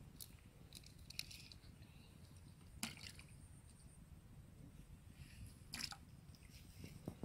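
Faint, mostly quiet handling sounds: a few short sharp clicks and rustles as hands pick the catch out of a wet woven bamboo basket.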